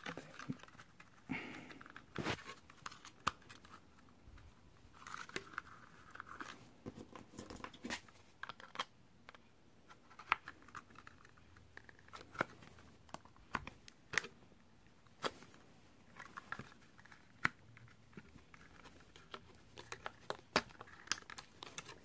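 Plastic gift cards scraping and flexing along the seams of a 2008 Honda Civic master power-window switch's plastic housing. Irregular small clicks and snaps come as the cover's plastic clips are worked loose.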